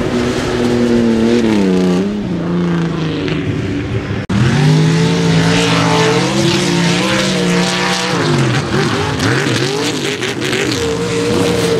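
Mud racing trucks' engines revving hard as they run through a mud pit, their pitch climbing and dropping over and over. There is a sudden break a little over four seconds in, and the engine sound then picks up again at high revs.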